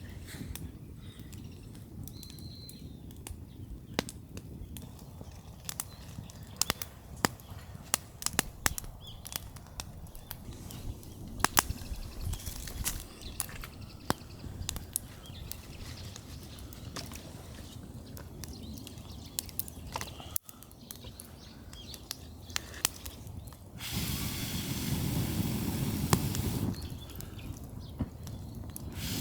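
Wood fire crackling, with irregular sharp pops and snaps of burning wood. About three-quarters of the way through, a louder rushing hiss rises over it for a few seconds and then drops away.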